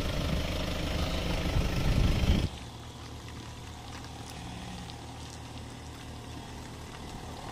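Toyota Land Cruiser Prado engine running close by, getting louder over the first two seconds, then cutting suddenly about two and a half seconds in to a quieter, steady engine hum as the Prado tows a boat trailer away.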